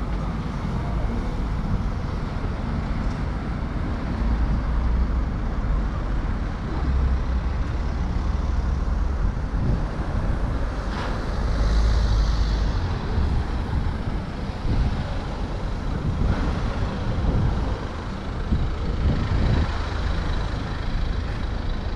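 Street traffic: vehicles passing with a steady low rumble of engines and tyres, heaviest in the middle stretch, where a large vehicle such as a bus or truck seems to go by. A brief hiss comes about halfway through.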